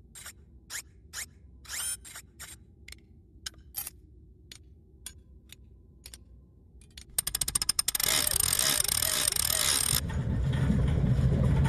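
A rail handcar's clanking machinery: separate ratchet-like clicks that slow and spread out, then, about seven seconds in, rapid clicking that speeds up into a loud rattling run, settling into a lower rumble near the end.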